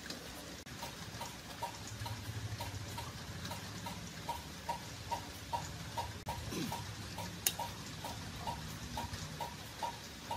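A steady, even ticking, about two and a half ticks a second, like a clock, over a faint steady hiss. One sharper click stands out about seven and a half seconds in.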